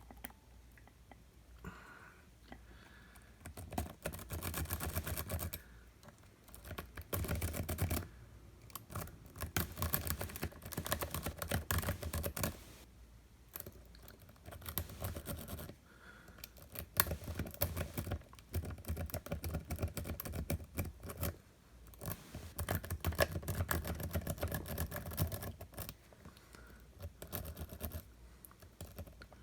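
A Sparrows worm rake scrubbed rapidly in and out of the keyway of a badly worn Illinois Duo padlock: a dense, fast metallic clicking and scratching of the pins. It comes in bursts of one to four seconds with short pauses between them.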